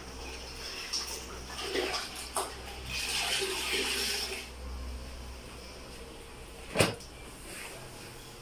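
Floor cloth being dunked and wrung out in a plastic bucket of water, with splashing and trickling for about a second and a half starting about three seconds in. A few soft knocks come before it and one sharp knock near the end.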